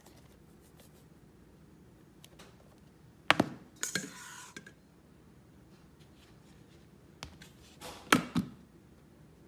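Kitchen handling sounds: a sharp knock and a short scrape about three seconds in as the stainless steel mixer bowl and plastic dough container are moved on the stone counter, then a few knocks near the end as the plastic lid is fitted onto the container.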